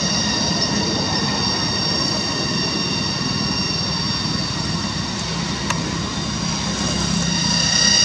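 Cicadas droning: a steady, high-pitched buzz that holds one even pitch, over a low steady rumble of noise.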